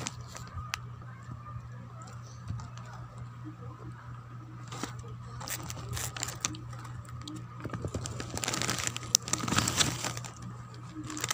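Plastic snack wrapper being crinkled and rustled by hand in irregular bursts, busiest and loudest in the second half.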